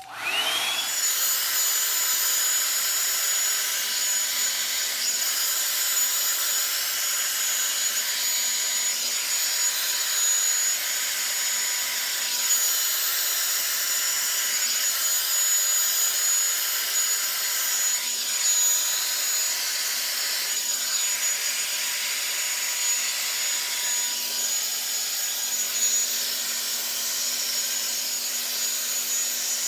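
Revlon One-Step hot-air brush dryer switching on and spinning up with a short rising whine, then running steadily: blowing air with a steady high whine.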